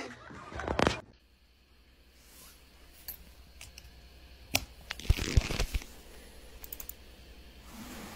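A few sharp plastic clicks and knocks with faint handling rustle in a quiet room, as a plug is pushed into the socket of a plastic power strip.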